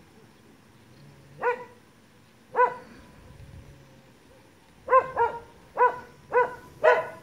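A dog barking: two single barks about a second apart, then a quick run of five barks.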